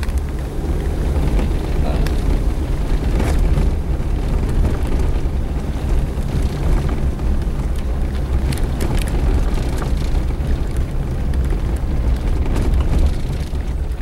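Suzuki Jimny driving along a rough dirt track, heard from the vehicle: a steady low engine-and-road rumble, with scattered knocks as it rides over the bumps.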